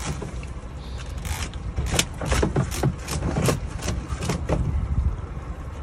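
Irregular scraping and clicking as a lobster is worked loose inside a hoop net, over a steady low rumble.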